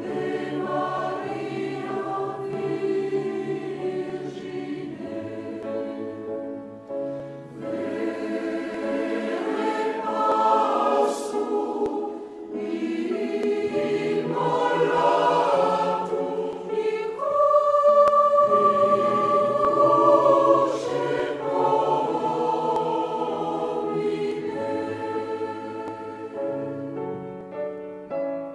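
Background choral music: a choir singing sustained chords in several parts, swelling to a held high note about two-thirds of the way through.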